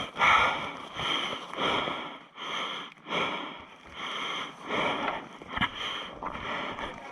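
A person breathing hard and fast, a steady run of heavy breaths about one to two a second.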